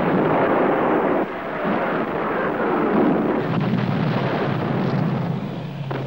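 Mi-24 gunship firing a salvo of unguided rockets, a loud rushing roar, followed by a long rumble of explosions.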